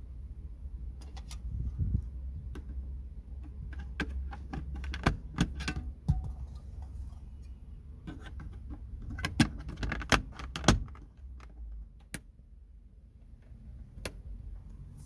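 Irregular clicks and taps of small plastic car interior trim and lamp parts being handled and snapped, thickest about four to six seconds in and again around nine to eleven seconds, over a low steady hum.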